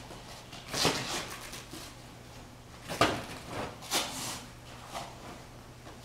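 Sharp swishes and snaps of a karate gi as Naihanchi kata strikes and blocks are thrown, with bare feet shifting on the mat; about five such sounds, under a low steady hum.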